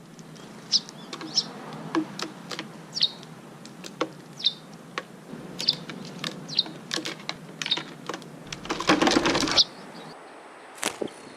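Short, high bird chirps repeated at irregular intervals, with sharp clicks between them and a dense crackling burst about nine seconds in.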